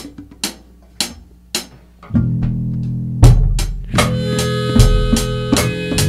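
Rock song intro: sharp percussive clicks about every half second, then bass and guitar come in about two seconds in, heavy drum hits about a second later, and the full band with drum kit and guitar is playing by about four seconds in.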